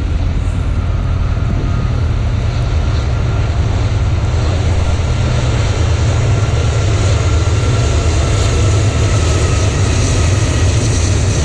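Diesel freight locomotives of an approaching train, a deep, steady rumble of engines and rolling wheels that grows gradually louder.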